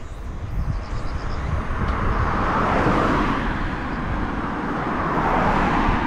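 A car coming up from behind and passing on an asphalt road. Its tyre and engine noise swells to a peak about halfway, eases a little, then swells again as it goes by near the end.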